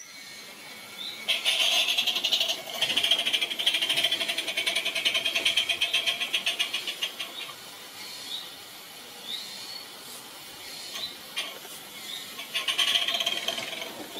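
Cheddar Models Iver live steam garden-railway locomotive running past close by, its exhaust chuffing in a fast, even beat over the rattle of its running gear. It is loud for several seconds from about a second in, eases off, and returns briefly near the end.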